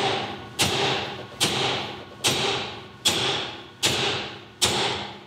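Hammer blows on a race punch driving a pinion bearing race into a Toyota third-member differential housing: seven even strikes about 0.8 s apart, each a sharp metallic hit that rings off.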